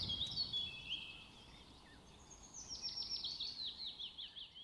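A songbird singing: chirped and warbled notes, then a quick run of falling notes in the second half.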